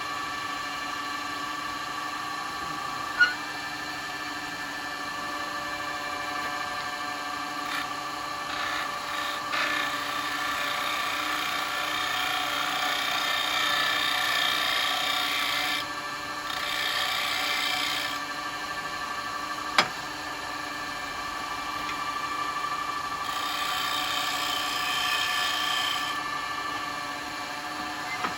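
Wood lathe running with a steady hum while a freshly sharpened turning tool cuts a wooden bowl, the cutting hiss swelling in two long passes, the first about eight seconds in and the second near the end. Two sharp clicks, one about three seconds in and one near the middle.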